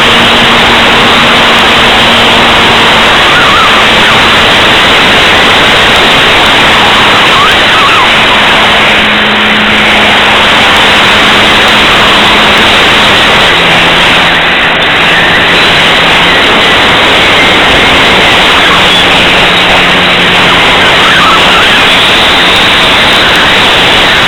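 Loud, steady roar of wind buffeting the microphone. Under it, a faint drone from the Apprentice RC plane's electric motor and propeller drops and rises in pitch several times as the throttle changes.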